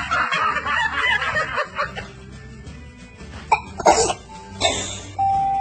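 A baby sneezing, short sharp bursts three times in the second half, over background music. A loud noisy stretch fills the first two seconds.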